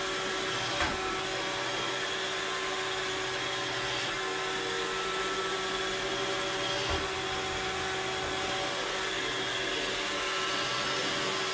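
Robot vacuum cleaner running with a steady hum, with two brief knocks, about a second in and about seven seconds in.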